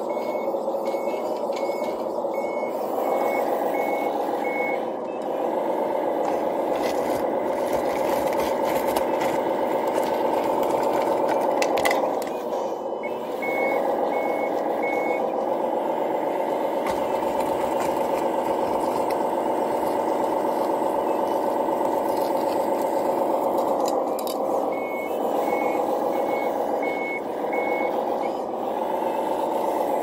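Radio-controlled hydraulic wheel loader at work: a steady electric whine from its hydraulic pump and drive that dips in pitch several times as the load changes. A model's reversing beeper sounds in three runs of short, high beeps: at the start, about halfway through, and near the end.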